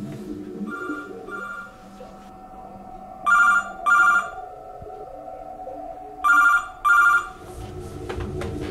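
Landline telephone ringing with a double-ring cadence: three pairs of short rings about three seconds apart, the first pair faint and the last two loud. A steady low hum runs underneath.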